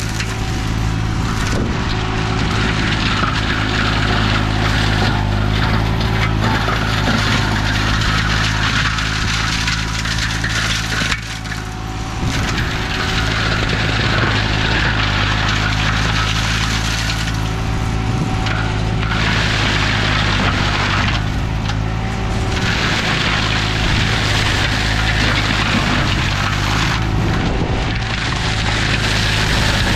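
Green Climber LV600 remote-controlled slope mower's Kohler engine running steadily under load while its flail mulching head shreds a pile of pruned olive branches, with crackling and splintering wood that swells and fades as the head bites into the pile, and a short dip about a third of the way in.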